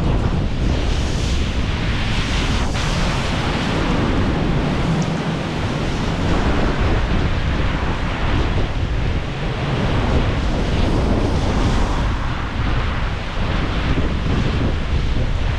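Strong storm wind buffeting the microphone, a heavy, fluttering low rumble over a steady rushing noise.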